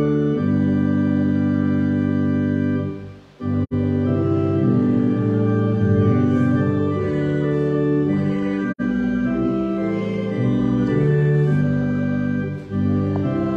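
Church organ playing sustained chords that shift every second or so, with a brief break about three seconds in and a couple of momentary dropouts.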